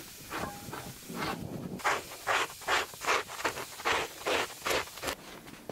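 A two-handed scraper is dragged over the bare skin side of a reindeer hide in quick repeated strokes, about three a second, each one a dry scratching rasp. The strokes are softer at first and grow stronger about two seconds in.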